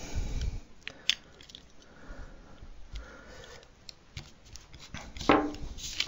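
Small clicks and scrapes of shower-valve cartridge parts being handled and worked together by hand and with a tool, with a sharp click about a second in and a louder scrape near the end.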